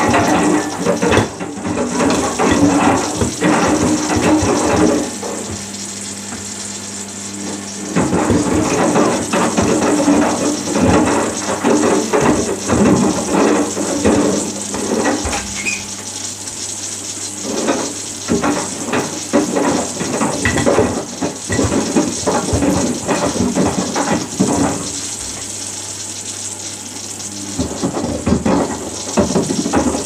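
Samsung WF80F5E0W4W front-loading washing machine filling and tumbling at the start of a wash: water splashes and sloshes in bouts of several seconds as the drum turns, dropping quieter for a few seconds three times, over a steady low hum.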